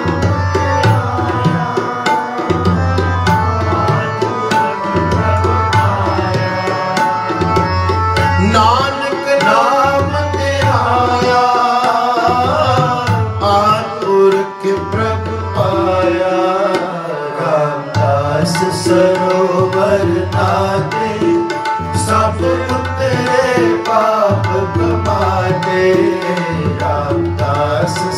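Sikh kirtan: tabla playing a steady rhythm with repeated deep bass strokes under sustained harmonium chords. A man's voice comes in singing about nine seconds in.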